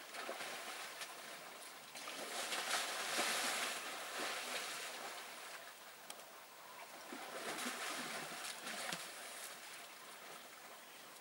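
African elephants wallowing in a muddy waterhole: wet sloshing and splashing of mud and water, rising and falling in two louder stretches.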